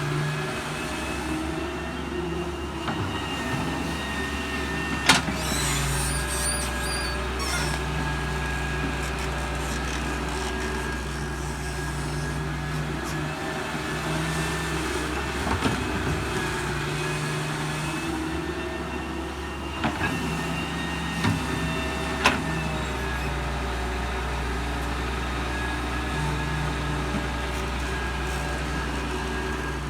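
Doosan DX140W wheeled excavator's diesel engine running under hydraulic load as it loads soil. The engine note swells and eases in repeated cycles every few seconds, with a few sharp knocks.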